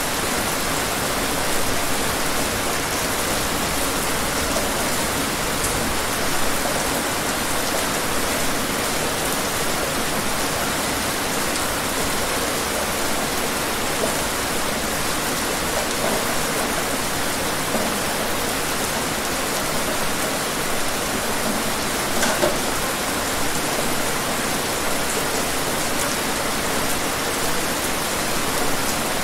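Steady rain falling, an even hiss with a few louder individual drops standing out now and then.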